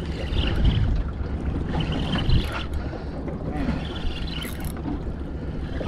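Small boat's outboard motor running steadily while trolling, under wind and water noise.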